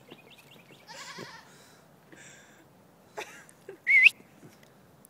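A person whistling to call a puppy back: one sharp whistle that rises and then wavers, about four seconds in, the loudest sound here. It comes after a few short, high chirping calls earlier on.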